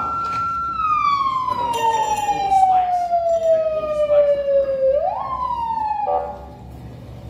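A siren wailing: one tone that holds high, then falls slowly for several seconds, rises again about five seconds in and cuts off suddenly soon after, with a few sharp clicks. It is played back from a video over a hall's loudspeakers.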